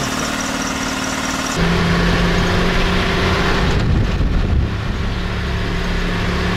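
Engine of a lifted Nissan Safari (Patrol Y60) running at a steady speed. About one and a half seconds in, the sound cuts to a deeper, louder engine note, which wavers briefly near the middle and then settles again.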